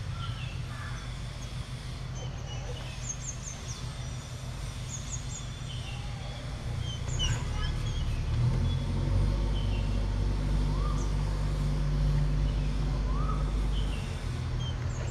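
Outdoor background of small birds chirping now and then over a low motor rumble, which swells about eight seconds in and drops back near the end.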